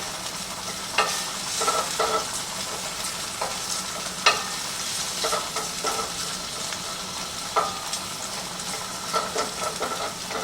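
Zucchini and garlic sizzling in oil in a frying pan, with short knocks and scrapes of a utensil stirring in the pan every second or so.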